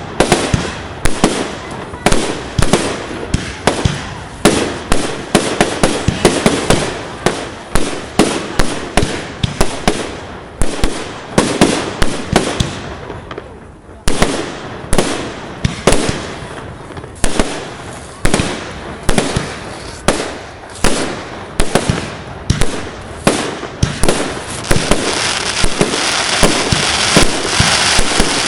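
Fireworks display: a rapid barrage of exploding shells, several sharp bangs a second, with a brief lull about halfway through. Near the end a high crackling hiss joins the bangs.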